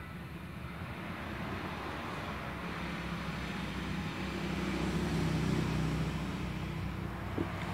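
A steady low mechanical hum that grows louder around the middle and eases off again, with one sharp click near the end.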